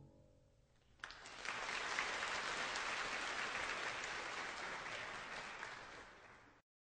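Soft music fading out, then about a second in a burst of audience applause that runs on, slowly fading, and cuts off suddenly near the end.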